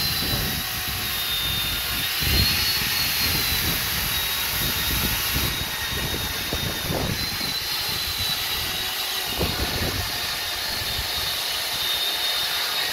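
Corded electric chainsaw running continuously with a high motor whine as it cuts through a fallen tree's logs, the pitch dipping and recovering slightly as the chain meets the wood.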